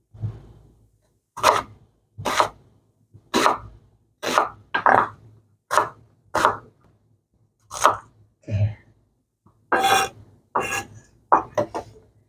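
Kitchen knife slicing through a red onion on a wooden cutting board: a dozen or so separate cuts, each a sharp knock of the blade on the board, at an uneven pace of about one a second, with a few quicker ones near the end.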